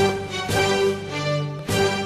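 Instrumental music with sustained notes and strong accented beats.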